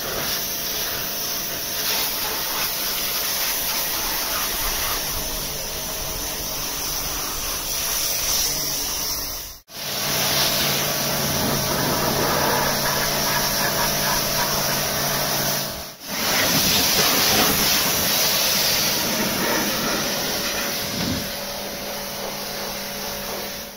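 The Vauxhall Cavalier GSi 4x4's 3.0 V6 engine running at steady revs under wind and road hiss while driving. Three stretches are cut together, with a brief drop at each cut about ten and sixteen seconds in.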